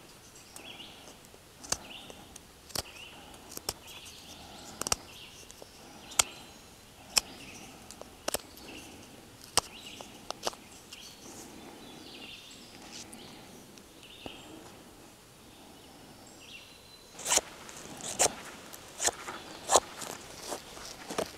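Knife carving a wooden tent stake, with sharp clicks as the blade shaves wood, roughly one stroke a second. Near the end come a quicker run of louder cuts.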